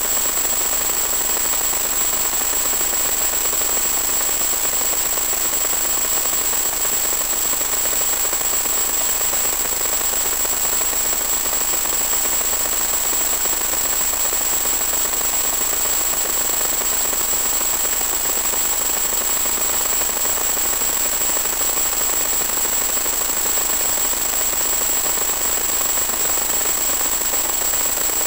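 Steady hiss of static with a constant high-pitched whine, unchanged throughout, from the audio channel of an analog 1.2 GHz FPV video link carrying no live sound.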